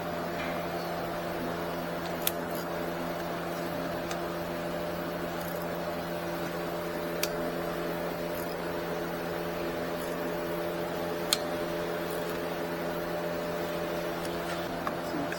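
A steady machine hum runs throughout. Three isolated sharp metallic clicks, as of hand tools touching metal while working on the starter, come a few seconds apart.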